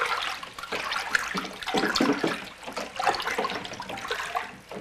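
Sugar water sloshing and splashing in a plastic cooler as it is stirred by hand in uneven surges. This is the sugar being dissolved for a sugar-based moonshine mash.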